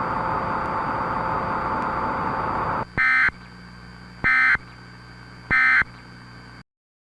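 A steady hiss of static cuts off after about three seconds. Three short, identical data-tone bursts follow about a second and a quarter apart: the EAS End of Message (EOM) bursts that close an emergency alert. The audio then cuts to silence.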